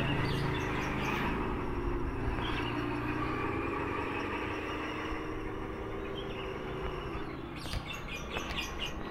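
A 1/10-scale RC truck driving, a steady hum whose pitch drifts gently up and down and fades a little as the truck moves away. Birds chirp near the end.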